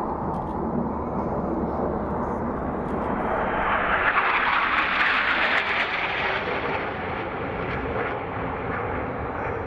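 Jet noise from a formation of Northrop F-5E Tiger II jets, each with twin turbojet engines, flying past. It swells to its loudest about four to six seconds in, then fades.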